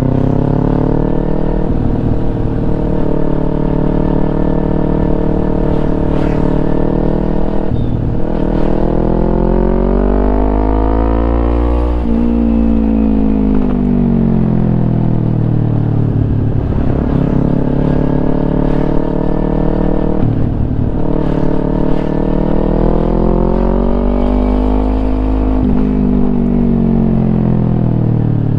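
Kawasaki Ninja 250 engine through a Yoshimura aftermarket exhaust, running steadily, then climbing in revs to a peak about twelve seconds in and dropping off. Later it climbs again and falls back near the end, with a couple of brief breaks in the sound.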